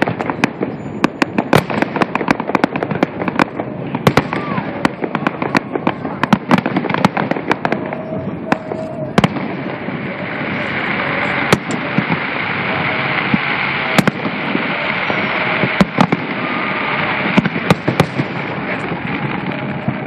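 Aerial fireworks show: a rapid run of loud, overlapping bangs and booms from bursting shells. After about nine seconds the bangs come less often and a steady rushing noise rises beneath them.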